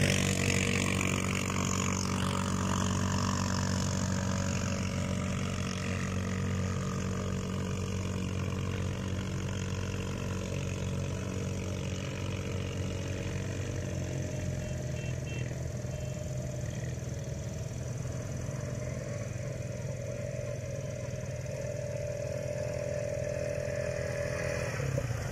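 Quad bike engine running steadily at an unchanging pitch, a little louder at the start and easing slightly over time.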